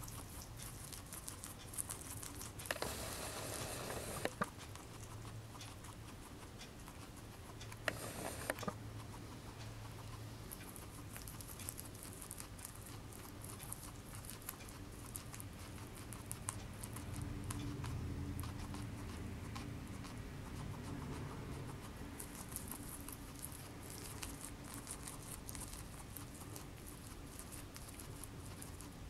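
Guinea pig chewing and crunching curly kale leaves, a steady run of small crisp clicks, with a couple of brief rustles.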